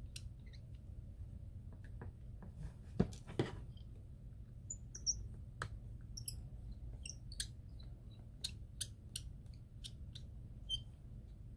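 Small precision screwdriver backing out the tiny bottom screws of an iPhone X: scattered faint clicks, with two louder ones about three seconds in, then a run of short high squeaky ticks as the bit turns in the screw heads.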